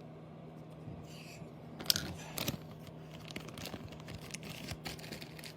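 Earplug packaging being handled, crinkling and rustling, with a few louder crackles and clicks about two seconds in.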